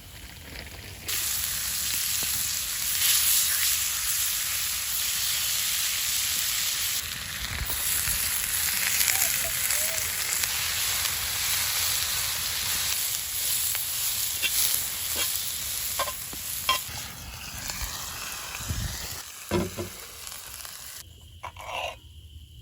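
Venison steak sizzling in a cast-iron pan over a campfire: a loud, steady hiss that starts abruptly about a second in and dies down near the end, with a few faint clicks late on.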